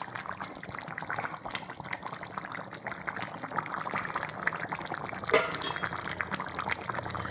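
Chicken curry boiling briskly in an open pan over a raised flame, the thick gravy blipping with many small bubble pops. A single louder click comes about five seconds in.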